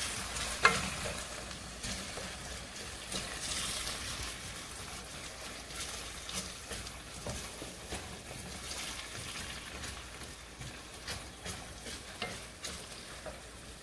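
Chopped red onion sizzling in oil in a stainless steel saucepan as it is sautéed, stirred with a wooden spoon that scrapes and taps the pan in scattered clicks.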